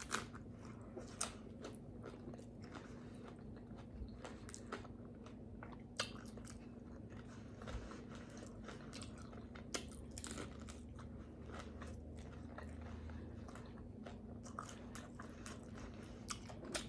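Close-miked chewing and biting of tacos: scattered crunches and wet mouth clicks at an uneven pace.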